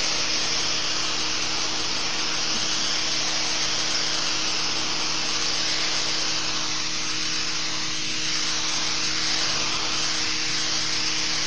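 AR Blue Clean AR383 electric pressure washer running steadily: its pump motor hums under the loud hiss of the water jet blasting a concrete sidewalk.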